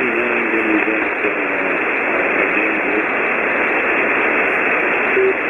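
Steady rush of static and hiss from a ham radio receiver on 40-meter single sideband. A weak voice from a distant station is barely audible under the noise for the first few seconds, and a brief tone sounds near the end.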